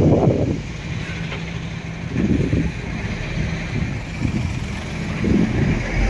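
Slow-moving road traffic: a line of cars passes close by with engine and tyre noise that swells three times as each nears, with a Scania truck in the queue among them.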